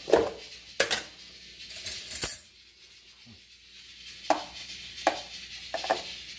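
A metal spoon clinking and knocking against a plastic tub and a stainless steel mixing bowl, about six separate sharp clinks spread over several seconds, as minced garlic is scooped into a bowl of julienned chayote and green onion.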